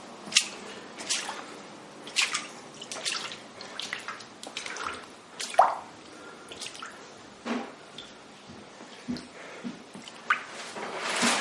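Water dripping in irregular single drops, some landing with a short pitched plop. Near the end a louder, steadier rushing of water begins.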